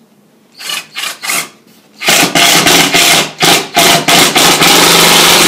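Cordless 14.4-volt impact driver sinking a drywall screw into the panel. It starts with a few short, quieter bursts, then from about two seconds in gives a loud, rapid rattling run of impacts in several trigger pulls with brief pauses. The screw is being set just deep enough for its head to barely break the drywall's paper face.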